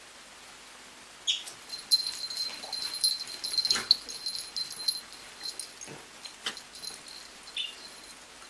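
Two young puppies play-fighting: high-pitched whining and short yips, with scuffling and bumps, starting about a second in.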